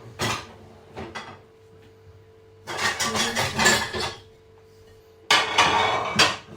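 Dishes and cutlery being taken out of a dishwasher and set down: a couple of sharp knocks in the first second, then two bursts of clattering and clinking about three and five and a half seconds in. A faint steady hum runs underneath.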